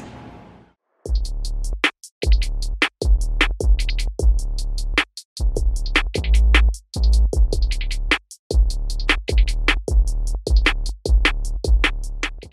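Background music: a drum-machine beat of deep bass notes and sharp hi-hat ticks about four times a second, starting about a second in.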